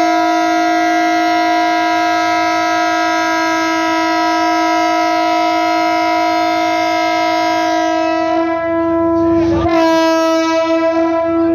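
DEMU train horn sounding one long, steady blast, breaking off briefly about nine and a half seconds in and then sounding again.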